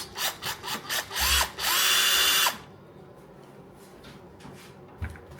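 A DEKOPRO 8V cordless drill's motor is triggered in several short bursts, whining up and dropping back each time. It is then held on at full speed for about a second and stops about two and a half seconds in.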